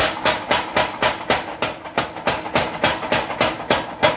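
A 25 kg mechanical power hammer working, its ram striking in a steady, even rhythm of about four blows a second, each blow a sharp metallic hit with a short ring. The last blow, near the end, is the loudest.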